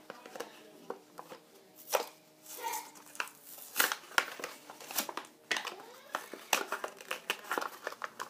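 A Hot Wheels blister pack of plastic and cardboard being crinkled and torn open by hand: irregular crackles and clicks, busier from about four seconds in.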